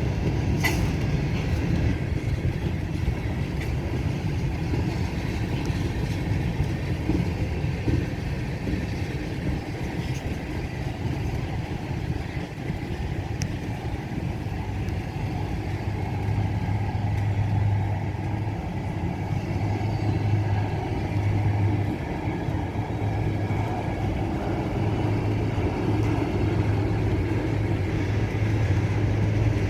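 Long CSX freight train's cars rolling slowly past at about 10 mph, a steady rumble of wheels on the rails with a sharp click about a second in and a low hum coming and going in the second half.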